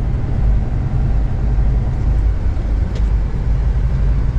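Truck's diesel engine running, heard from inside the cab as a steady low rumble.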